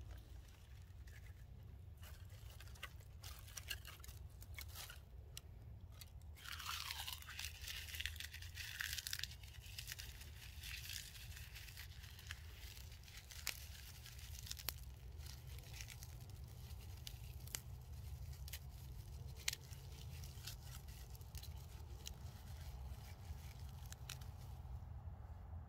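Dry twigs and tinder crunched, snapped and crumpled by hand while tinder is readied for a campfire: a run of light cracks and crackles, with a longer scrunching from about six and a half to nine and a half seconds in.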